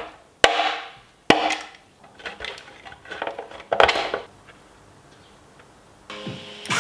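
Sharp knocks and clacks of hands and a screwdriver working on a hard plastic RC truck body: three loud knocks in the first second and a half, then lighter clattering.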